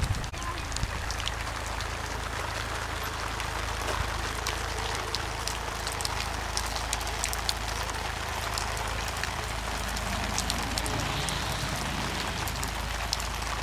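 Rain shower falling steadily, with many sharp drop ticks scattered through an even hiss and a steady low rumble underneath.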